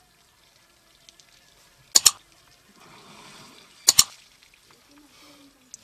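Two sharp double clicks about two seconds apart: mouse-click sound effects of an on-screen like-and-subscribe animation. Between them comes a soft rush of noise from a Sri Lankan elephant blowing water out of its trunk.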